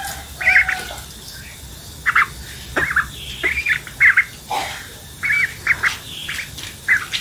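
Young white domestic duck giving a string of short, squeaky calls as it feeds, each call arching up and down in pitch. A few sharp clicks come between the calls.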